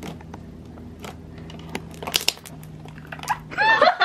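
White fluffy slime squished and kneaded by hand, giving small wet popping crackles, with a denser run of crackles about two seconds in, over a steady low hum. Near the end a loud burst of laughter starts.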